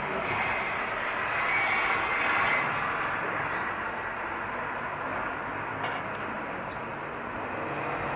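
Steady background road-traffic noise, swelling slightly about two seconds in, with a faint click near six seconds.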